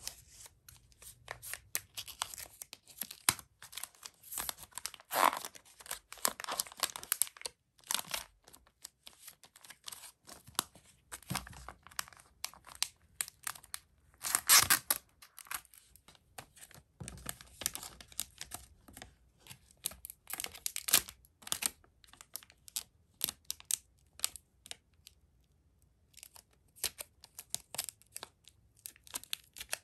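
Thin clear plastic sleeve crinkling and rustling in irregular bursts as a cardboard-backed packet is handled and slid into it, with short tearing-like peels of tape.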